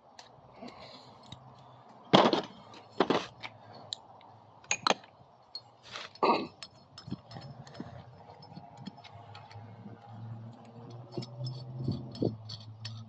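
Hand tools and small steel parts clinking and clanking on a workbench while a small-engine cylinder head is dismantled, with rocker studs and guide plate being removed. There are a few sharp metallic knocks, the loudest about two seconds in, then lighter ticks over a faint low hum.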